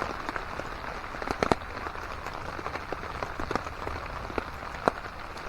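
Steady rain falling on a tarp overhead, with scattered sharp taps of heavier drops, two of them louder, about a second and a half in and near the end.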